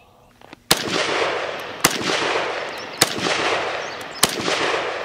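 Chinese SKS semi-automatic rifle firing 7.62x39 rounds, four single shots about a second and a quarter apart. Each shot is followed by a long echoing tail.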